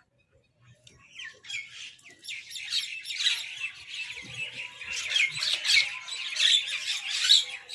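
Birds squabbling: a dense, rapid chatter of many overlapping harsh calls that starts about a second and a half in and grows louder toward the end.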